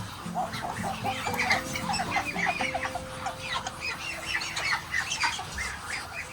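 A flock of poultry calling, many short high chirps and squawks overlapping without a break, over quiet background music with held low notes.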